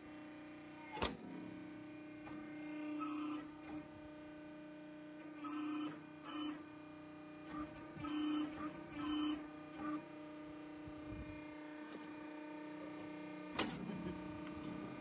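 The electric motor of a compressed earth block press hums steadily. Several short rasping bursts come between about three and ten seconds in, and there are two sharp metal clanks, one about a second in and one near the end as the press's lever arm and top plate are worked.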